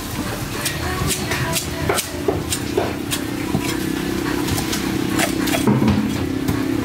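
A knife scraping and cutting at a large barracuda on a wooden chopping block: a run of irregular sharp scrapes and clicks. A steady engine hum runs underneath and grows stronger partway through.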